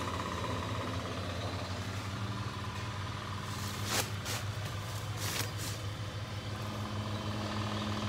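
Steady low drone of an engine running at an even speed, its pitch stepping up slightly a couple of seconds in. A few brief rustles of leaves and twigs brushing past come around the middle.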